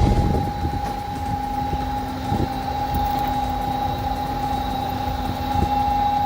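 A machine running steadily with a constant high whine over a low rumble; a second, lower steady tone joins about a second in.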